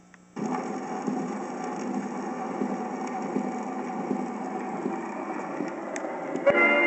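Edison Diamond Disc record's surface noise, played through the 1928 Edison C-2 radio-phonograph's amplifier and loudspeaker. About half a second in, once the reproducer is set on the disc, a steady hiss and crackle comes up; near the end the recorded music begins.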